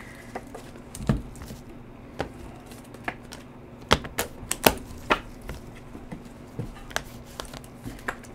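Irregular sharp clicks and taps of trading cards in plastic holders being handled, knocking against each other and the table, over a faint steady hum.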